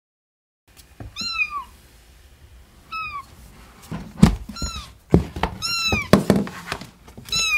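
White kitten mewing, five short high-pitched mews that each drop in pitch at the end, with a few thumps between them.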